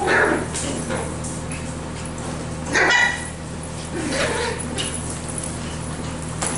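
Cockapoo puppies barking and yipping in play: a few short high barks, the loudest about three seconds in.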